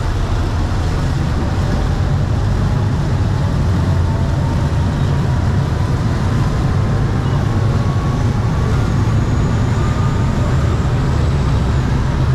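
Passenger boat's engines running steadily under way, a deep constant rumble, with the churning rush of its propeller wake over it.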